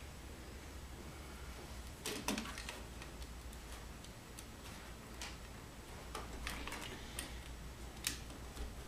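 Faint, scattered small clicks and taps of fingers fitting a crimped spade connector onto a terminal of a plastic Atlas selector switch.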